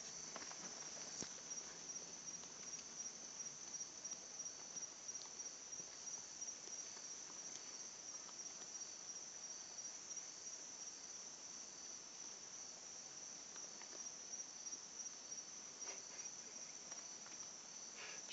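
Night insect chorus, likely crickets: one continuous high-pitched trill, with a few faint ticks.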